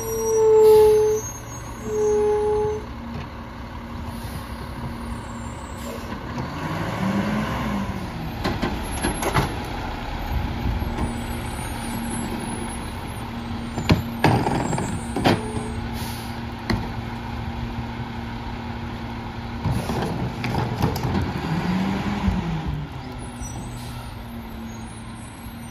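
A Mack LEU garbage truck's engine idles, then revs up and back down twice as the McNeilus rear loader's packer cycles. Sharp bangs and clatters come through the middle as trash is loaded into the hopper. Two long low alarm beeps sound right at the start.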